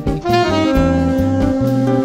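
Small band playing a jazz tune in marinera style: a saxophone leads, settling on one long held note about a third of the way in, over electric bass, nylon-string guitar, drums and keyboard.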